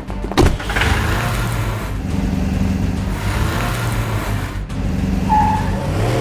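Toy vehicle engine sound effect running steadily with a low hum, with a sharp knock about half a second in and a brief beep-like tone near the end.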